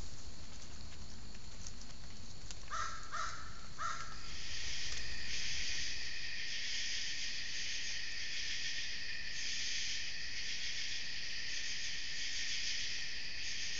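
A crow caws three times in quick succession. Then a steady, shrill chorus of night insects takes over, pulsing slightly.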